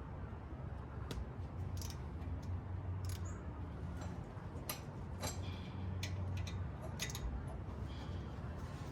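Scattered light metallic clicks and taps of hand tools and brake parts being handled during a brake pad change, about a dozen at uneven intervals, over a steady low hum.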